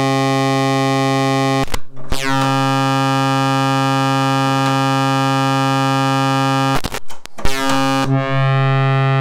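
Serge Triple Waveshaper (Synthetic Sound Labs Model 1050) putting out a steady, bright wavefolded synth tone. Twice it is broken by clicks, pops and brief dropouts as patch cables are plugged in to chain the waveshaper stages in series, about two seconds in and again around seven seconds in. Each time the tone comes back with its overtones gliding down into place.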